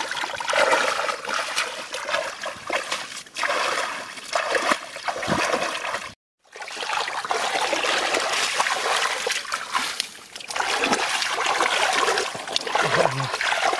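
Hands splashing and sloshing through shallow muddy water, groping in the mud, in uneven rushes. There is a brief full silence about six seconds in.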